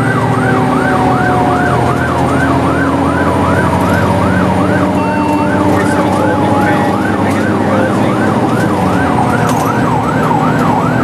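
Fire engine siren on a fast yelp, sweeping up and down about three times a second, heard from inside the cab. Under it are a second, steadier siren tone that slowly falls in pitch and the truck's engine running.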